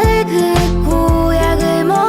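Background music: a pop track with sustained melodic notes over a bass line that pulses roughly twice a second.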